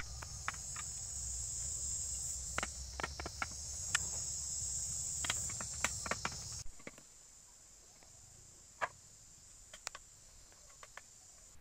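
Insects chirring steadily and high in the background, with scattered sharp taps and knocks from hand work on bamboo strips being fixed to the entrance. A low rumble under it drops away suddenly about two-thirds of the way in, leaving the insect sound fainter with a few more taps.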